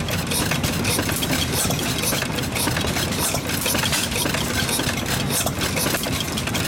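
Foos-built Petschel hit-and-miss gas engine running, with a quick, even run of clicks over a steady low running sound.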